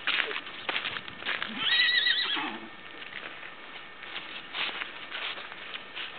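A pony's freshly trimmed hooves clip-clopping on pavement at a walk, and a horse whinnies once about two seconds in, a short quavering call that is the loudest sound.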